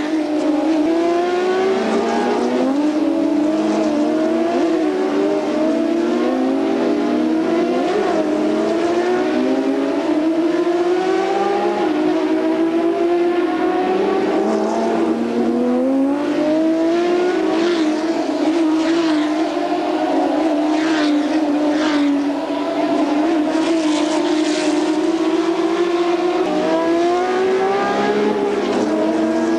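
BMW M1 Procar race cars' straight-six engines at racing speed, several cars at once, the pitch climbing repeatedly through each gear and dropping back at every upshift.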